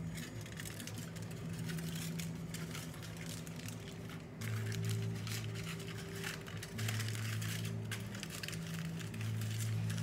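Aluminum foil crinkling as it is crumpled and pressed by hand, over background music with held low notes that change every few seconds.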